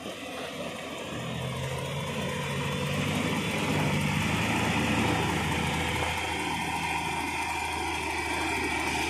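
Escorts EC5250 single-drum road roller's diesel engine running as the roller drives close by, growing louder over the first few seconds and then holding steady.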